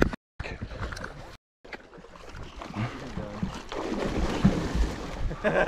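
Wind on the microphone over open water, with a rushing noise that builds toward the end. The sound cuts out completely twice near the start.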